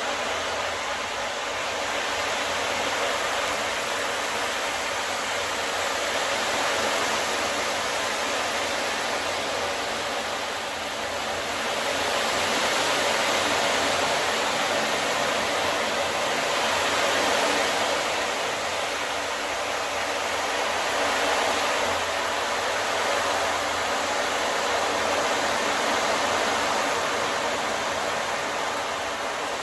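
Ocean drum played with a slow tilt, the beads inside rolling across the drumhead in a continuous wash that swells and eases in slow waves, fuller from about twelve seconds in.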